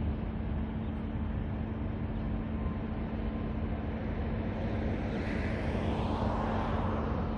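Steady outdoor traffic rumble with a low hum. About five seconds in, a vehicle passes by: its noise swells, drops in pitch as it goes past, and fades.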